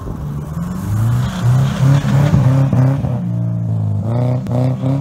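A car engine revving hard, the revs jumping up and dropping back in quick steps as the car spins its wheels and slides on snow.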